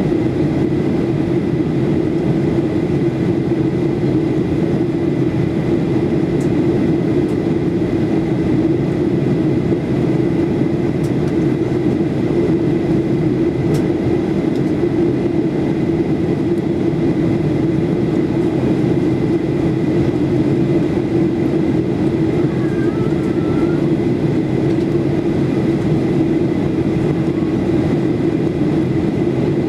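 Cabin noise inside a Ryanair Boeing 737-8200 during descent: the steady rumble of its CFM LEAP-1B turbofan engines and the air rushing past the fuselage, with a faint steady high whine.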